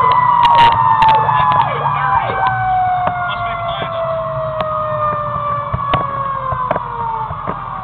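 Fire engine siren winding down, its pitch falling slowly and steadily the whole time as it fades, heard from inside the cab over the truck's low engine rumble.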